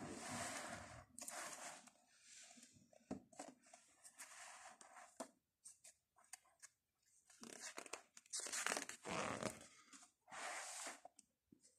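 Paper pages of a picture book rustling and crinkling as they are handled and turned, in a series of faint, irregular rustles, the loudest about three-quarters of the way through.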